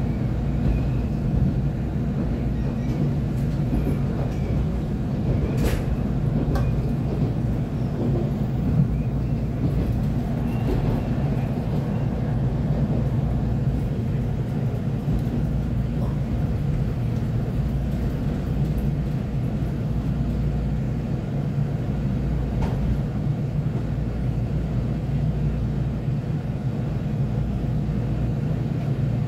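Former JNR express-type electric train running, heard from inside the passenger car: a steady low rumble of the car on the rails, with a few sharp clicks along the way.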